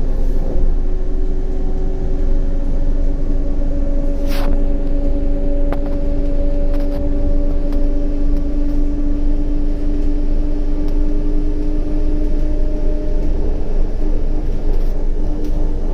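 CAF Urbos 100 tram running along the track: a steady low rumble of wheels on rail under a traction-drive hum held at a steady pitch. A sharp click comes about four seconds in, followed by a few fainter ticks.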